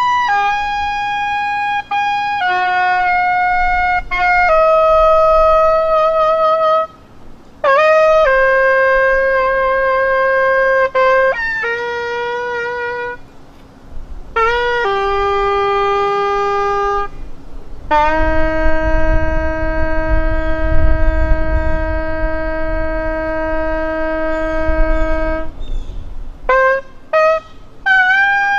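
A solo wind instrument playing a slow melody in long held notes, some with a slight vibrato, the longest held for several seconds.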